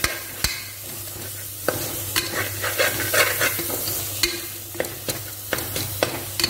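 A metal ladle scraping and knocking irregularly against the inside of an aluminium pressure cooker as a thick spice masala is stirred, over a steady sizzle of frying. The spice powders are being sautéed until their raw smell cooks off.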